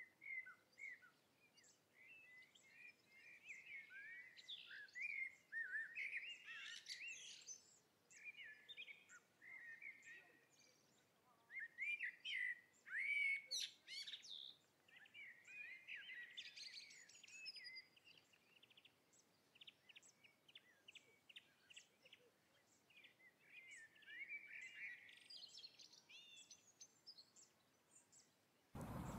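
Small songbirds singing and twittering in repeated bursts of quick chirping phrases, over a faint outdoor hiss. Near the end a louder steady rushing noise cuts in abruptly.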